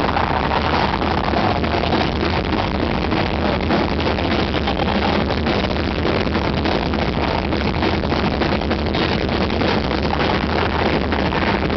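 Loud live heavy metal band playing, a dense, unbroken wall of guitars and drums.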